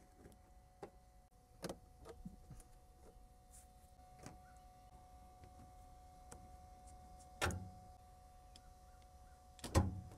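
Plastic push-pin trim clips being pried up with a flat screwdriver and pulled out of a plastic trim cover: scattered light clicks and scrapes, with two louder snaps, one about seven and a half seconds in and one near the end.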